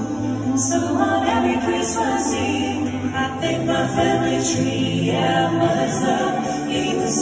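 A vocal group singing live in close harmony, with a low sung bass line under the chords and a crisp high percussive hit about every second and a half, recorded from the audience in an arena.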